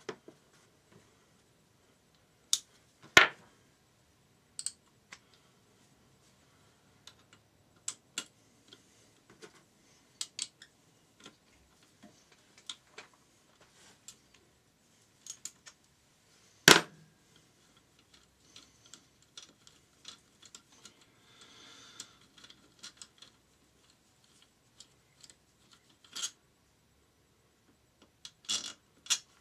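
Scattered clicks and knocks of hand tools and loose parts on a Yamaha XT600 engine being dismantled at the cylinder head, with a few sharp louder knocks, the loudest about 3 seconds in and past the middle.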